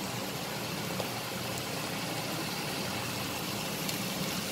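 Steady hum of a Prestige induction cooktop's cooling fan, with a faint even sizzle of vegetables frying in oil in the wok.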